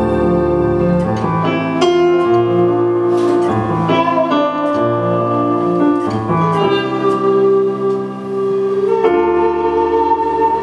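Kamancheh, the Persian bowed spike fiddle, playing a slow melody of long bowed notes that shift in pitch every second or so, with a short dip in loudness about eight seconds in before a new held note.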